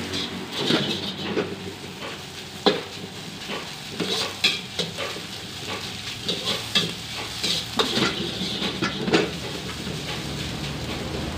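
Metal ladle scraping and clanking against a wok as fried rice is stir-fried over a gas burner, the rice sizzling in the oil. The clanks come irregularly and stop about nine seconds in.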